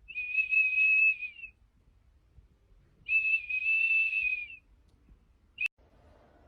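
A steady high whistle held for about a second and a half, twice, then a short chirp at the same pitch near the end.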